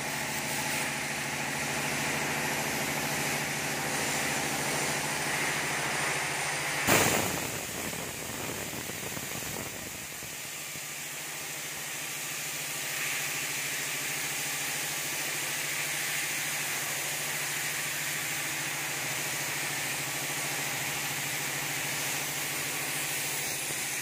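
Paint spray gun hissing steadily over a steady machine hum. A brief loud knock comes about seven seconds in, and the hum is quieter after it.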